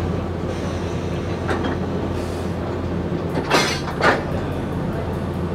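EP2K electric locomotive standing coupled to a passenger coach, giving a steady low hum, with a few short sharp noises near the middle.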